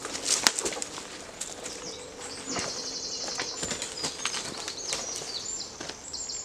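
A long dead wooden pole being pulled free of tangled branches and dragged through undergrowth: twigs cracking and leaves rustling, with the sharpest cracks about half a second in. A songbird trills in the background from about two and a half seconds in.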